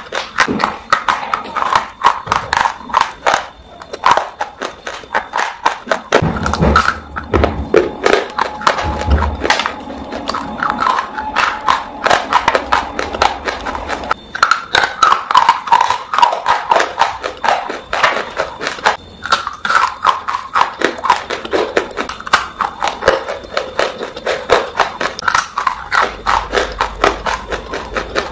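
Close-up chewing of hard, dry clay chunks, a rapid run of sharp crunches and crackles between the teeth.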